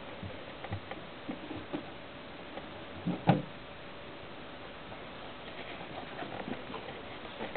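Puppies moving about in their run: light scattered pattering and clicking of paws and claws, with one short, louder sound about three seconds in.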